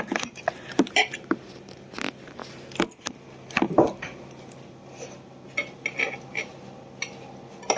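Cutlery clinking and scraping on plates during a meal: irregular, scattered taps and clicks.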